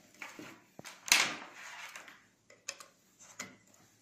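Clicks and short scrapes of 5.5 mm DC barrel plugs being pushed into the mini miner's boards and their power cables being handled, with the loudest scrape about a second in and sharp clicks near the end.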